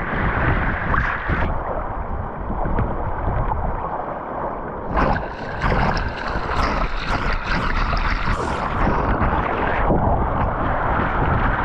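Water rushing and splashing along the hull of a Hobie Tandem Island sail-kayak moving fast through choppy sea, with wind rumbling on the microphone. From about five to ten seconds in, the splashing gets louder and sharper as spray breaks over the lens.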